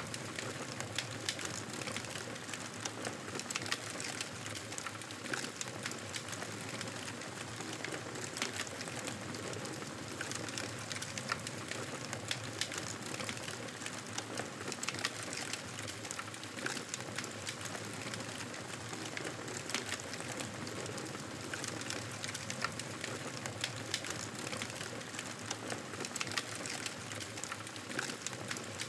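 Campfire burning with a steady hiss and frequent small crackles and pops from the burning wood.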